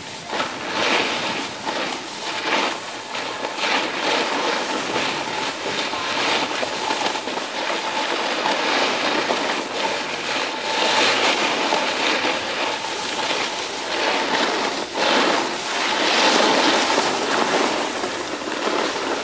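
Snowboard sliding and carving over snow: a continuous rough scraping noise that swells and fades from turn to turn, loudest about 11 and 16 seconds in, with a faint steady tone underneath.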